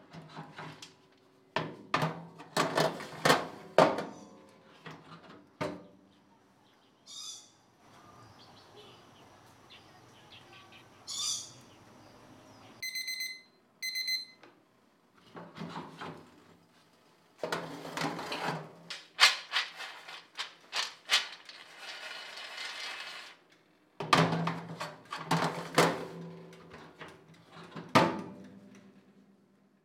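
Metal baking tray of peanuts rattling and scraping on a small oven's rack, in several bursts of clattering with a ringing note. About halfway through come two short electronic beeps, a second apart, from the oven's controls.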